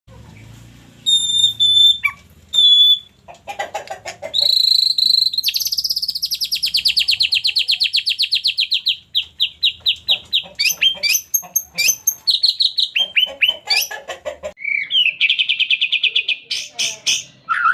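White-rumped shama singing a long, varied song: clear whistled notes, a long rapid trill that sinks slightly in pitch, then quick rattling phrases and another fast trill near the end.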